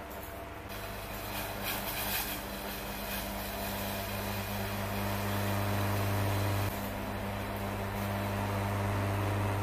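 Steady low electrical hum of a kitchen motor, with a few light clicks and rustles about two seconds in as ingredients drop into a stainless steel saucepan.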